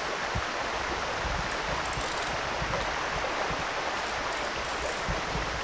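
Steady rush of flowing water in a small, shallow stream.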